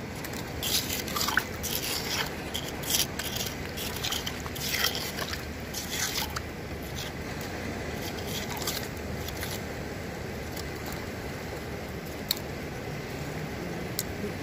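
Hands digging and scraping through wet sand, gravel and shells while gathering shellfish in the shallows: a run of short crunching scrapes and clicks over the first half, growing sparser later, over steady background noise.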